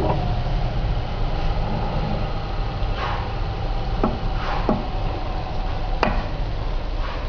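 Glass-grinding machine running with a steady low hum and a faint whine. Several sharp clicks come about three to six seconds in as glass pieces are picked up off the machine plate for measuring.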